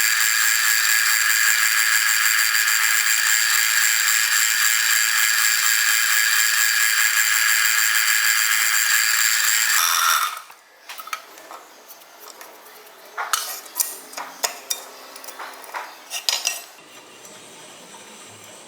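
Abrasive cut-off disc cutting steel C-channel: a loud, steady high whine that stops about ten seconds in and winds down. Then metal pieces clink and knock together for several seconds.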